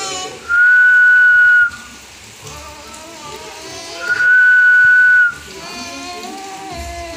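Whistling: two long, steady single notes about three and a half seconds apart, each held for about a second, with softer wavering vocal sounds in between.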